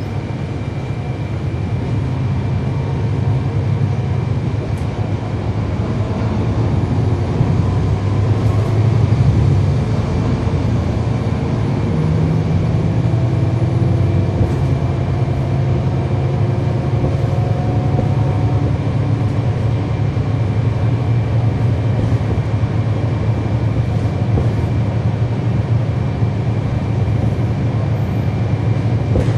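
Cummins ISL9 diesel engine of a 2012 NABI 416.15 transit bus running as the bus drives, heard from inside the cabin. The engine pulls harder and grows louder over the first nine seconds or so, eases off suddenly, then runs on steadily.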